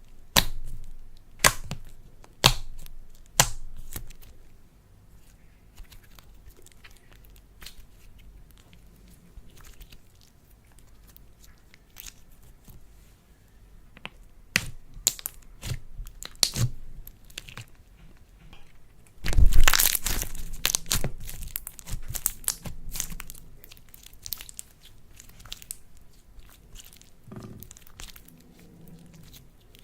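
Slime being handled and mixed with makeup, giving sharp crackling clicks and tearing sounds: four loud cracks in the first few seconds, scattered softer clicks, then a loud dense stretch of crackling about twenty seconds in.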